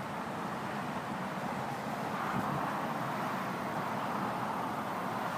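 Steady rushing of a flood-swollen creek, an even hiss-like wash of water.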